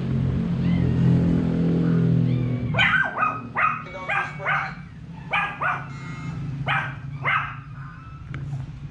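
A dog barking: a run of about eight short, sharp barks, starting about three seconds in. Before the barks, a loud low steady drone.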